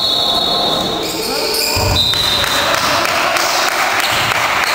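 Basketball game play: the ball bouncing on the court among players' and spectators' voices, with a low thud about two seconds in.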